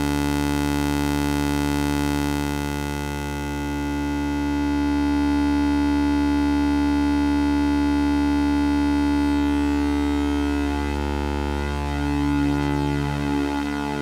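Make Noise Strega synthesizer sounding a steady drone rich in overtones, with its echo blended in. About ten seconds in the tone begins to waver and shift in pitch as its knobs are turned.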